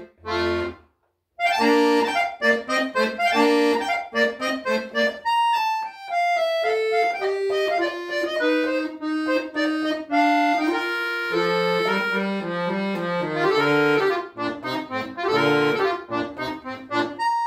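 Solo accordion playing a classical piece: a chordal phrase that breaks off in a brief pause about a second in, then a running melodic line, with low bass notes joining from about the middle.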